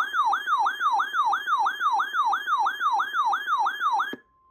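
Electronic yelp siren tone used as the alert signal for a tornado warning broadcast: a fast, evenly repeating rising sweep, about three and a half a second, that cuts off abruptly about four seconds in.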